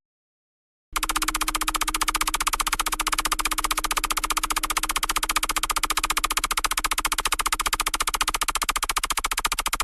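Time-skip sound effect: a very fast, even run of ticks over a faint steady low tone, starting about a second in, holding level for about nine seconds, then cutting off suddenly.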